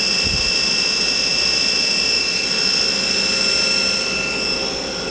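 Main spindle of a 1999 Star SV-32J Swiss-type CNC lathe running steadily at 4000 rpm: an even, high-pitched whine made of several steady tones.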